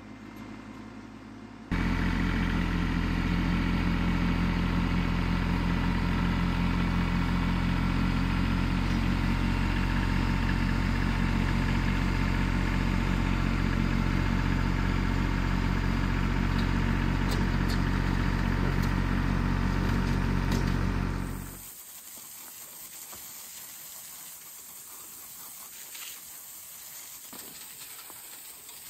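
An engine idling steadily. It cuts in abruptly near the start, holds an even note, and fades out about twenty seconds later.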